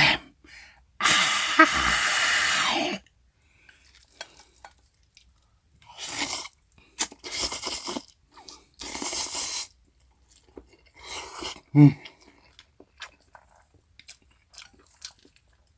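Close-miked eating of cold spicy mixed noodles. There is a long slurp about a second in and several shorter slurps between about six and ten seconds, with chewing and small wet mouth clicks in between.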